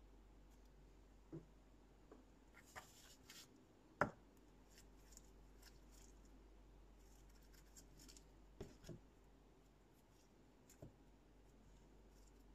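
Faint, sparse sticky clicks and pops of thick slime being stretched and handled, with one sharper click about four seconds in.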